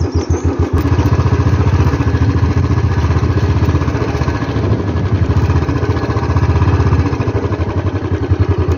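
Motorcycle engine running at low speed with a steady, even pulsing beat as the bike rides over a rough dirt track; it picks up slightly about a second in and then holds steady.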